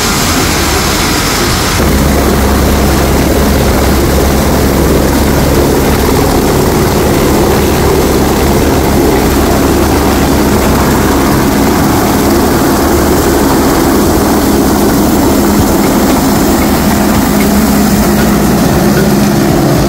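Helicopter lifting off and climbing away, its turbine whine and rotor beat running loud and steady.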